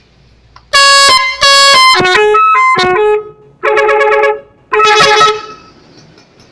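Telolet horn, a multi-note musical vehicle horn, playing a tune in four loud blasts, the second a run of quickly changing notes.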